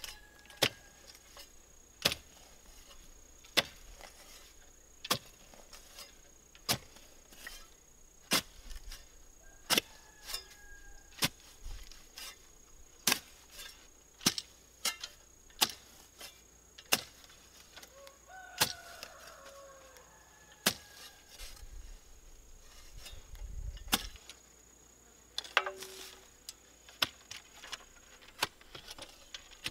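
Long-handled post hole digger jabbed down into sandy soil, striking sharply about once every second and a half.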